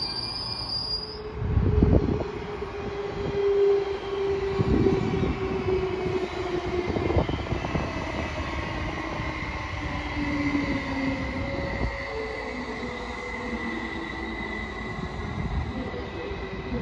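Mälartåg ER1 double-deck electric train running past along the platform: a steady rumble of wheels on rails, with heavy thumps about 2, 5 and 7 seconds in, and a whine that slowly falls in pitch.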